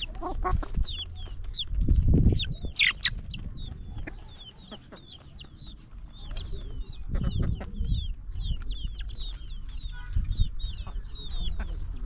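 Chickens calling: a steady stream of short, high peeping calls, two or three a second, with clucks among them. A few brief low bumps break in, the loudest about two seconds in.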